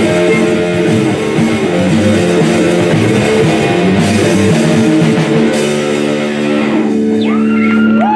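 Live rock band playing loud electric guitar over a drum kit; about seven seconds in the band stops, leaving a held chord ringing with a few sliding higher tones over it.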